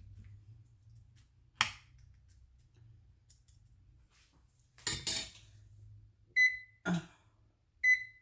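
Oven keypad beeping as the bake temperature is set: two short high beeps, one about two-thirds of the way in and one near the end. Before them come a sharp click and a brief rustle.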